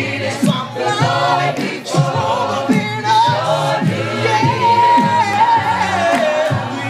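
A small gospel group singing through a PA system, led by a male singer on a microphone. A few seconds in, one voice holds a long high note that slides down at the end.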